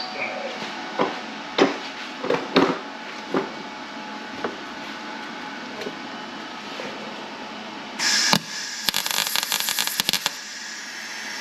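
Several separate knocks and clicks of metal parts and tools being handled, then, about eight seconds in, roughly two seconds of dense crackling from a MIG welder tack-welding a steel patch panel into the firewall.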